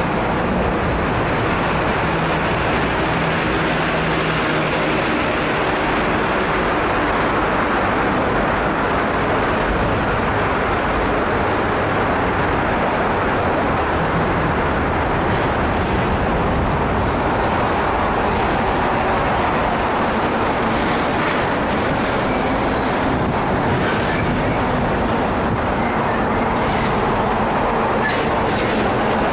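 Steady rumbling rush of riding noise, wind and road vibration, picked up by an action camera mounted on a moving bicycle.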